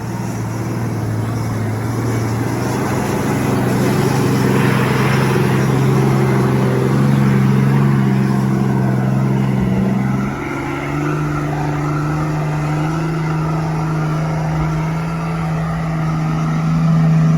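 Off-road 4x4 engine running under load, its note creeping slowly upward, then dipping in level and settling to a steady, slightly lower note about ten seconds in.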